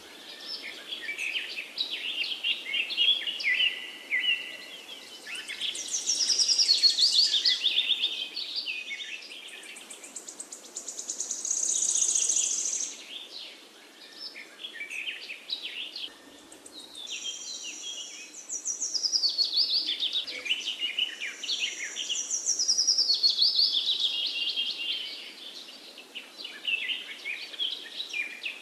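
Several songbirds singing in overlapping phrases and trills, the songs swelling and fading in bouts every few seconds, over a faint steady background hiss of forest ambience.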